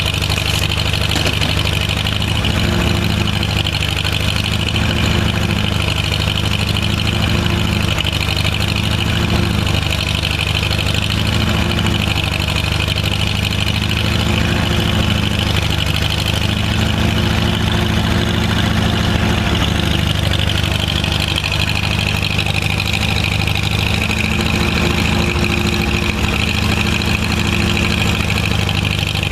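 Truck engine idling steadily, with a steady high whine running over the low engine sound.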